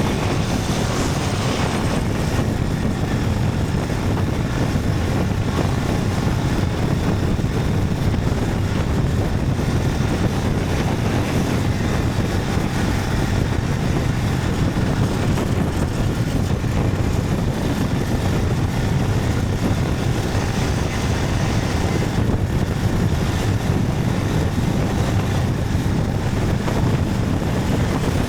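Motorcycle riding at a steady pace: engine running under a steady rush of wind over the microphone.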